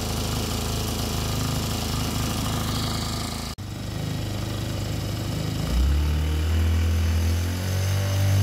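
Ozeam 1.3 hp outboard motor running out of the water, steady at first, with a very short break a little over three seconds in. About two-thirds of the way through, the engine speed rises and the centrifugal clutch drives the newly made two-blade propeller, which spins freely in the air.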